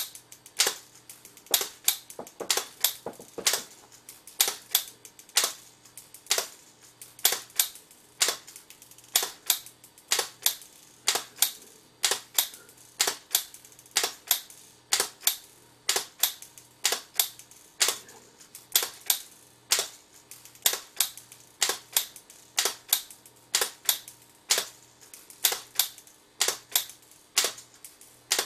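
Solenoid gates of a Bytronic bead sorter snapping open and shut in sharp clicks, often in quick pairs, about two to three a second, as beads are released one by one and sorted by colour into two hoppers. A faint steady hum runs underneath.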